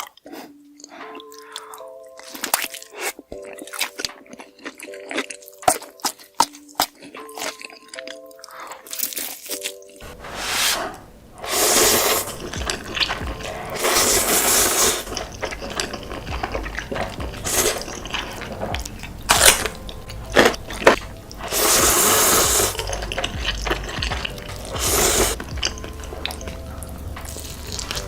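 Close-miked eating sounds: crisp crunches and wet mouth clicks over a light plucked background melody. About ten seconds in, the sound changes abruptly to a denser, noisier stretch with several loud rushing swells.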